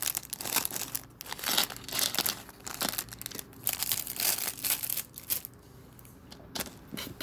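Plastic crinkling and small Lego pieces clicking as they are handled and put together. The crinkling is dense for about the first five seconds, then thins to a few separate clicks.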